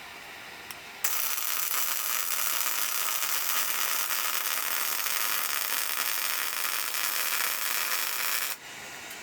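A welding arc burning on steel bumper pieces: a steady, hissing run that starts abruptly about a second in and cuts off sharply near the end.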